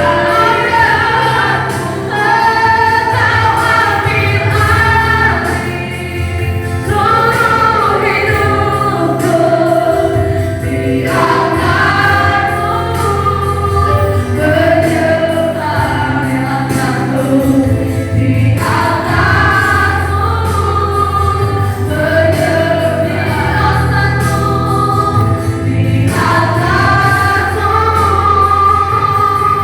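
A group of voices singing a gospel worship song with instrumental accompaniment, in phrases of a few seconds each over a steady bass.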